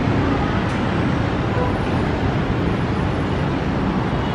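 Steady urban traffic noise: a constant low rumble of road vehicles with no distinct events standing out.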